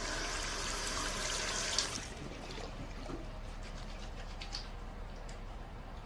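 Water running and trickling, louder for about the first two seconds and then settling to a steady, quieter flow.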